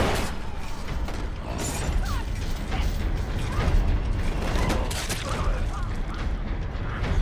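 Horror-film fight soundtrack: a loud hit at the start, then a dense clatter of metal and rattling chains over a low rumble.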